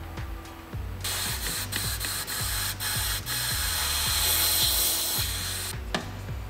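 Compressed-air blow gun with a long extension nozzle hissing as it blows out a rear sunroof drain tube. The hiss starts about a second in, dips briefly a few times and stops near the end. Background music with a steady beat plays throughout.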